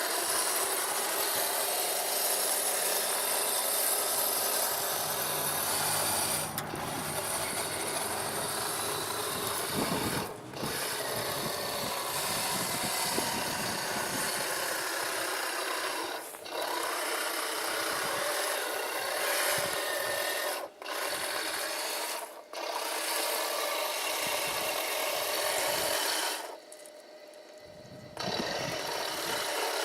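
Heng Long 1/16 RC tank's electric gearbox drive and plastic tracks running with a grinding rasp. The sound stops briefly several times and has a longer pause near the end.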